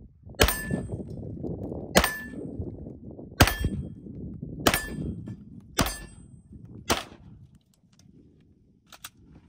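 Six pistol shots, one every second or so, each followed by a short metallic ring as the bullet hits a steel target.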